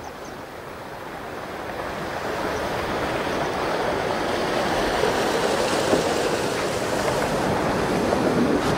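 Water rushing over a low river weir: a steady wash of falling water that grows louder over the first few seconds and then holds.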